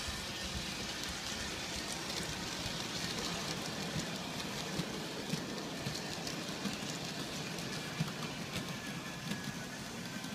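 G scale model trains running on their track: a steady rattling rumble with a patter of many small, uneven clicks.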